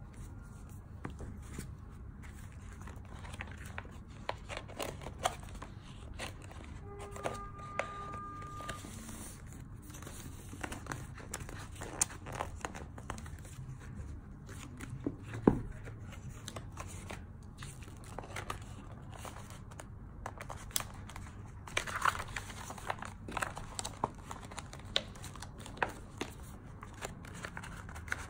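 A clear flexible plastic book cover being handled and fitted onto a paperback: crinkling and rustling of the plastic sheet, with scattered sharp clicks and taps as it is pressed and folded against the book and table. A brief steady tone sounds about seven seconds in.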